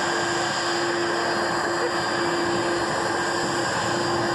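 An Airbus A330's twin jet engines running at low taxi power as the airliner turns onto the runway to line up: a steady rushing noise with a faint, even drone.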